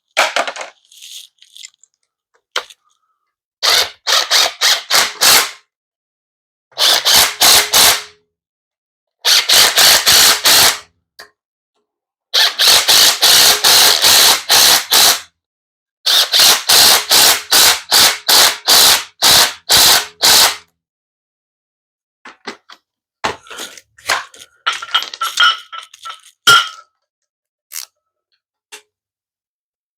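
A tool tightening the bolts of a transmission adapter plate. It clicks sharply and loudly in five bursts, each 1.5 to 4 seconds long at about four to five strokes a second. Near the end come lighter scattered clicks and a brief scrape.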